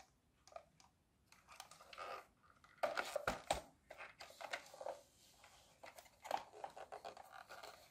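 Plastic toy tractor being handled: the plastic body and wheels rubbing and clicking in the hands, with a cluster of louder knocks about three seconds in.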